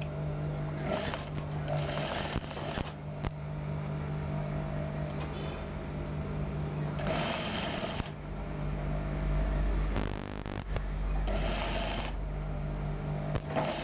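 Sewing machine running steadily while stitching an invisible zip onto a blouse, its low motor hum growing louder and deeper about eight seconds in.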